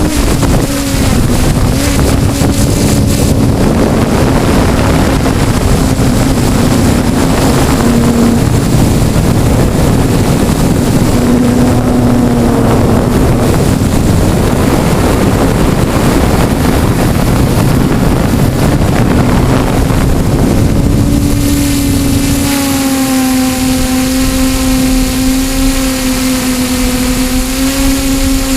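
A small motor hums steadily at a low pitch, its note wavering and dipping briefly a couple of times, then holding clearer and steadier over the last few seconds. Heavy wind rumble on the microphone runs under it.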